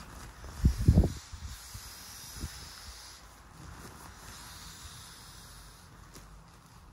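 Nylon pump sack rustling and hissing as it is squeezed and rolled down to push its air into an inflatable sleeping pad, with a few dull thumps about a second in.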